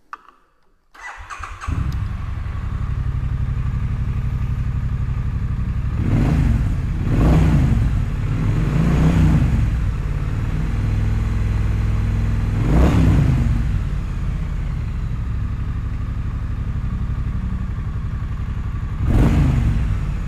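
2016 Triumph Street Twin's 900 cc parallel-twin engine on standard silencers, started after about a second of cranking, then idling with several short throttle blips.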